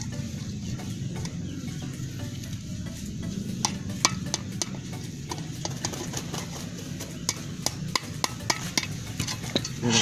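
Sharp, irregular metal taps of a hammer on a nail punching holes through an empty tin milk can. They start a few seconds in, the loudest about four seconds in, over a low steady hum.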